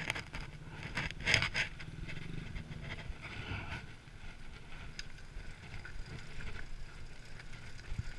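Mini quad being pushed by hand with its engine off: tyres rolling over asphalt, with footsteps and clothing rubbing close to the microphone, the rubbing loudest in the first second and a half.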